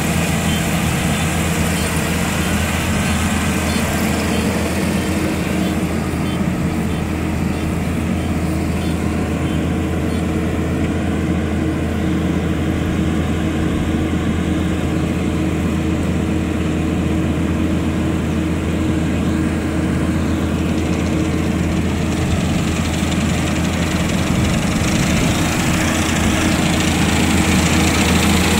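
Rice combine harvester's engine running steadily with a constant hum while it harvests, growing a little louder near the end as the machine comes closer.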